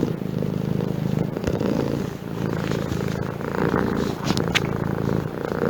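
Domestic cat purring steadily, a fast even rumble that swells and eases with its breathing. A few faint short clicks come about one and a half and four and a half seconds in.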